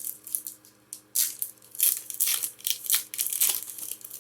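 A Pokémon booster pack's foil wrapper crinkling and tearing open, in a run of sharp crackly rustles from about a second in.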